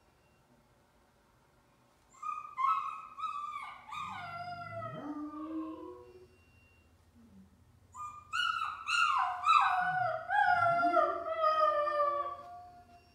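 A Doberman howling softly along with a crying puppy's whines, in two bouts: one starting about two seconds in, and a louder one starting about eight seconds in. Higher falling whine-like calls overlap lower rising howls.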